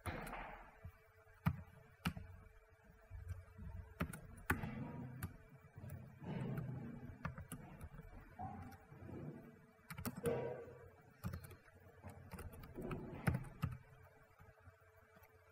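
Typing on a computer keyboard: irregular runs of keystroke clicks, with a faint steady hum beneath.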